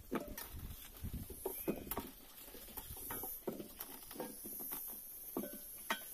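A wooden pestle pounding small green fruits in a metal cooking pot, crushing them for juice: irregular dull knocks, about two a second.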